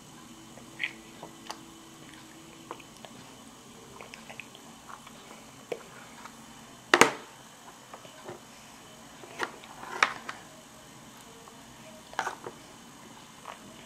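A toddler eating: scattered small mouth sounds, smacks and chewing noises, with the clicks of a plastic fork at her mouth. The sharpest click comes about seven seconds in, and a few more cluster around ten seconds.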